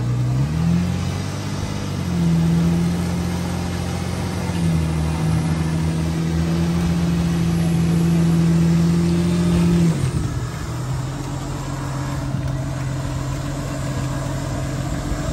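An off-road 4x4's engine revs up within the first couple of seconds, holds a steady higher speed for several seconds, then drops back to a lower, steady running speed about ten seconds in.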